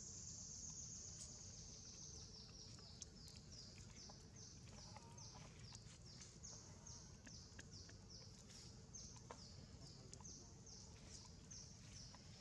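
Faint high-pitched insect buzz from the surrounding forest. It is steady for about the first two seconds, then breaks into an even pulsing of about two or three pulses a second, with a few faint clicks mixed in.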